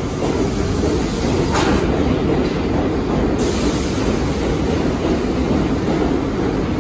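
New York City subway train running along the track: a steady rumble of wheels on rails, with a brief higher-pitched hiss about a second and a half in.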